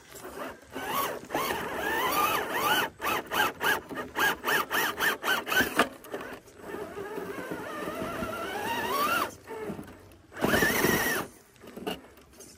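A scale RC crawler's small electric motor and gearbox whining through quick throttle blips, the pitch rising and falling about three times a second. This is followed by a longer whine rising in pitch, then one more loud burst near the end.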